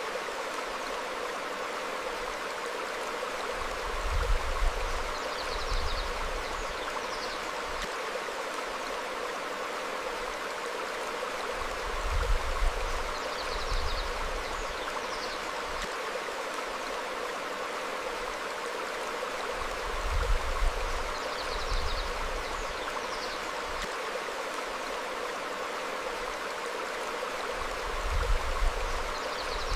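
Small stream flowing over rocks, a steady rush of water, with a few faint short bird chirps. A low rumble comes and goes about every eight seconds.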